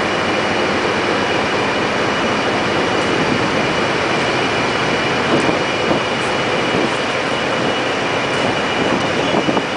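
Mobile crane's engine and hydraulics running steadily under load while it holds a suspended heavy load, a loud even machine noise with a steady high whine through it.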